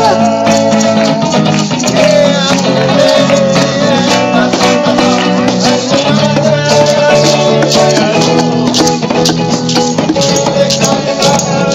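Band playing live: strummed acoustic and electric guitars with maracas and hand shakers rattling steadily along.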